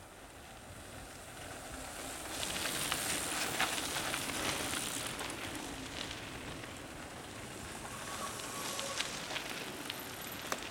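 Mountain bike tyres crackling over dry leaves and dirt as a line of riders passes close by, rising about two seconds in and swelling again near the end.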